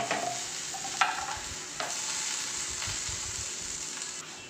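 Diced potatoes sizzling in hot oil in a frying pan, a steady hiss. In the first two seconds there are three sharp clicks of a knife against the pan and board as the last pieces are pushed in.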